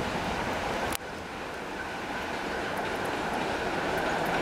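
ChME3 diesel shunting locomotive running as it approaches with a train of wagons, a steady rumble that grows gradually louder, with a faint steady engine tone. There is a single sharp click about a second in.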